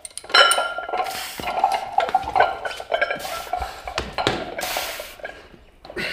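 Metal gym weights clanking against each other: a series of sharp knocks with a brief metallic ring after each.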